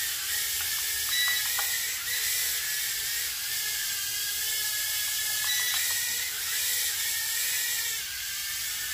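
Micro quadcopter's tiny propeller motors whining steadily in flight, the pitch wavering up and down as the throttle changes.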